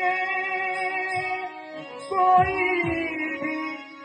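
A man singing a Hindi song in long held notes, with a few low drum strokes underneath.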